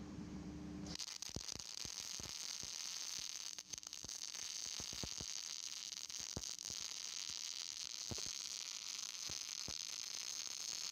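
Wire-feed arc welding on steel: a steady hiss with irregular crackles and pops. It starts about a second in, after a faint low hum.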